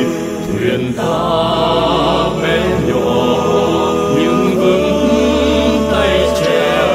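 Choral music: massed voices hold long notes over a steady instrumental bass.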